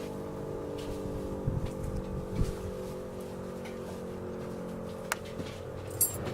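Federal Model 5 mechanical fire siren sounding several steady low tones that fade slightly toward the end. Two sharp clicks near the end.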